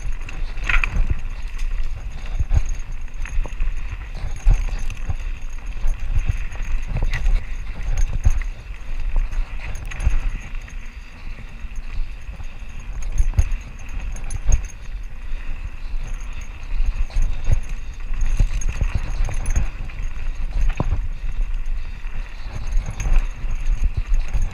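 Mountain bike rolling over a rough, rocky dirt trail: a continuous run of irregular knocks and rattles from the tyres and bike over the cobbles, under a low rumble.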